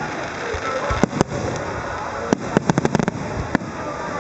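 Aerial fireworks bursting in sharp bangs: two about a second in, a rapid string of about half a dozen around the middle, and one more near the end, over a steady crackling background.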